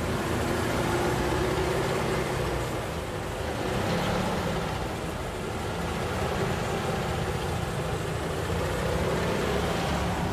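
1950 Studebaker bullet-nose car's engine idling steadily.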